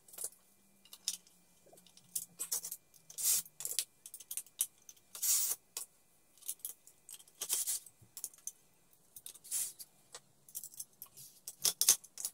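Irregular clinks and clacks of small metal parts and tools being handled while a plastic recoil-starter cover is fitted over a small engine's flywheel, over a faint low hum.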